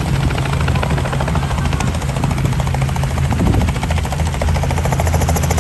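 Helicopter running close by, a loud steady drone with a fast, even pulsing.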